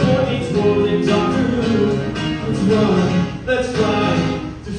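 Live song: a man singing and strumming a guitar, with a short dip in loudness shortly before the end.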